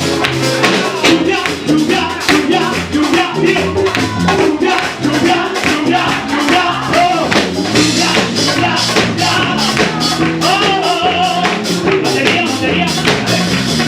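Upbeat praise song in a Latin rumba style: a fast, steady percussion beat of rapid strikes under instruments, with a voice singing the melody.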